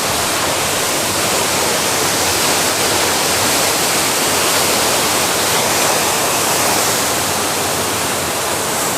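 Waterfall roaring steadily up close, a loud even rush of falling water; the flow is heavy and strong.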